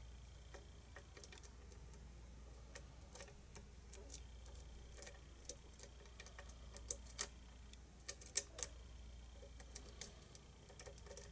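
Irregular small metallic clicks and ticks of a lock pick and tension wrench working the pins inside a pin-tumbler challenge lock, a few sharper clicks about seven and eight seconds in, as a stubborn pin that won't lift with a thin pick is worked. A faint cricket trill comes and goes behind the clicks.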